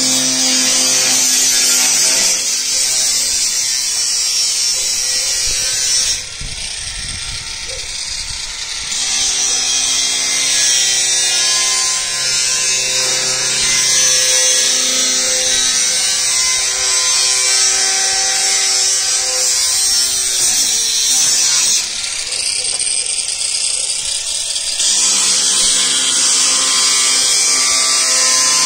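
Electric angle grinder grinding steel: a loud steady hiss over a motor whine, which eases off twice for a few seconds and then picks up again.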